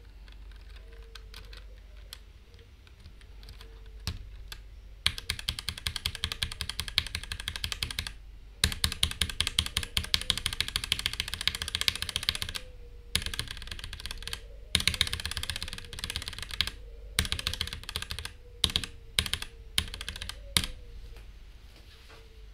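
Typing on a mechanical keyboard fitted with test switches. A few scattered key presses come first, then fast runs of keystrokes in several bursts with short pauses between them, then a few separate presses near the end.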